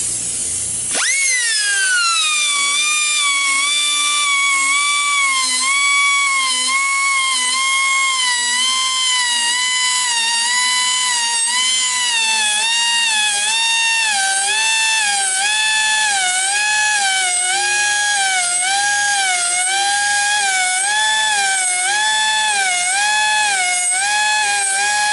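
Handheld rotary grinding tool spinning up about a second in, then running with a high whine whose pitch dips about once a second as the cutter is pressed into each tooth of a sawmill bandsaw blade to sharpen it.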